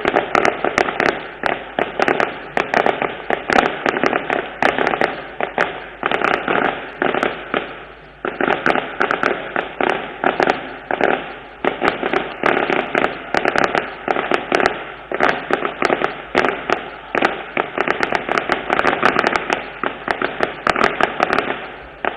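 Firecrackers going off in a long, rapid run of sharp bangs, with a short lull about eight seconds in.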